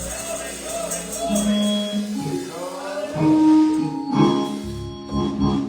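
Church music: voices singing a slow song over sustained instrumental accompaniment.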